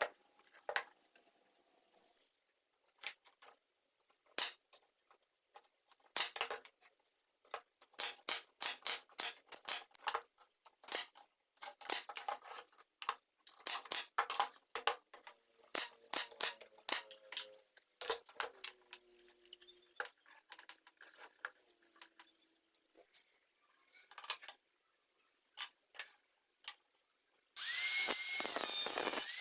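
A long run of sharp clicks and light metallic knocks, some ringing briefly, as parts are handled and fitted. Near the end a small electric power tool starts and runs steadily with a high whine.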